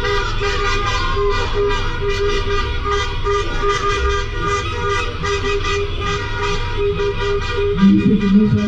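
Car horns honking over and over in short beeps, about two or three a second, over the rumble of the slow-moving traffic.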